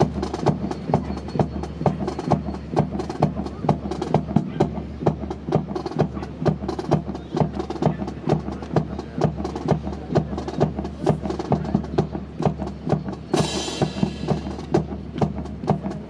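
Rifles of a drill team being handled in unison: quick, regular wooden clacks and knocks of stocks being slapped, spun and grounded, a few a second. About 13 seconds in comes a short burst of hissing noise.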